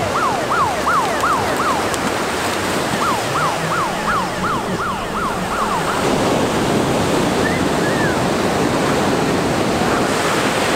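Breaking ocean surf as a steady rushing wash. Over it, in the first six seconds, come two runs of quick rising-and-falling whoops, about three a second.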